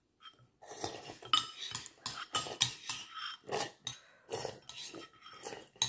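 Metal spoon clinking and scraping against a ceramic soup bowl as noodle soup is stirred and scooped, in a quick irregular run of knocks and scrapes.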